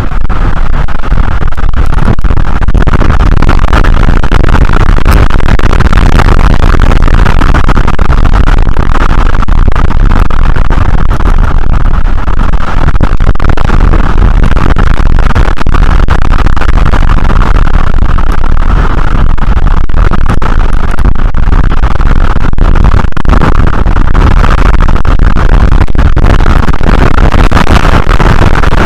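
Strong wind buffeting the nest-cam microphone: a loud, constant rumbling rush with no letup.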